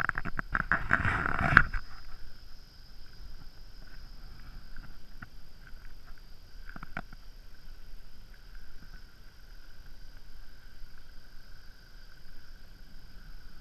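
Four-wheel drive's running sound heard muffled through a GoPro housing mounted on the vehicle: a loud rush for the first couple of seconds that cuts off abruptly, then a faint steady hum with a high whine.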